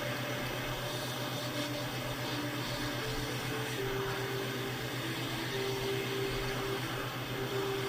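Hot-air rework station blowing steadily: an even fan and airflow noise with a low hum, used to heat the charging port so it seats in place.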